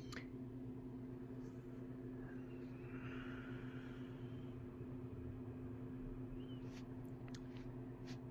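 Steady low mechanical hum, with a few faint clicks in the last second and a half.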